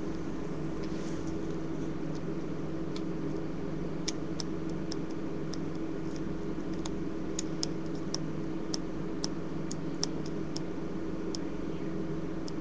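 Steady low hum with a run of light, sharp clicks, irregular and about two a second, that starts about four seconds in and thins out near the end.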